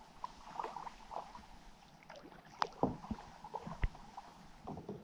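Kayak paddling: light water splashes and drips with a few sharp knocks, the loudest about two and a half and about four seconds in.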